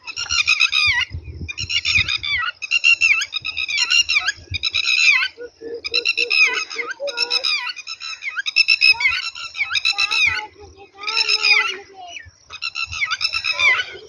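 A bird calling loudly and over and over: phrases of quick, sharp, high notes, each about a second long, with short breaks between them.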